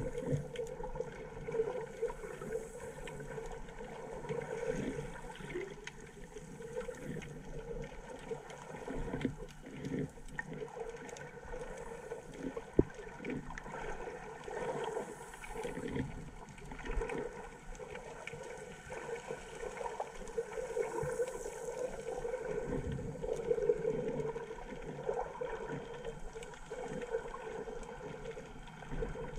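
Muffled underwater sound of a submerged camera: water sloshing and gurgling around it, over a steady hum. A single sharp click stands out about halfway through.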